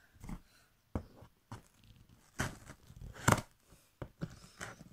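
A knife blade stabbing and slicing through the packing tape and cardboard of a shipping box: a string of short, sharp stabs with some tearing, the loudest a little past three seconds in.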